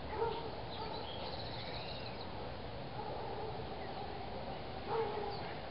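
Outdoor background of birds calling, a few short chirps and a trill about a second or two in, over steady low background noise, with two brief louder sounds just after the start and about five seconds in.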